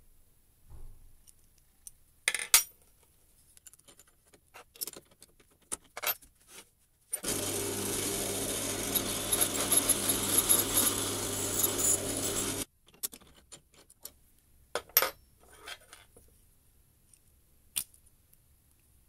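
Small metal parts clicking and tapping as an aluminium piece and a 6 mm steel shaft are handled. About seven seconds in, a drill press motor starts, runs steadily with a hum for about five and a half seconds, and cuts off abruptly.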